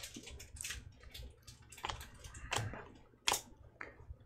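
Topps Chrome baseball cards being flipped through by hand, one sliding off the stack after another: an irregular run of light flicks and scrapes of glossy card stock.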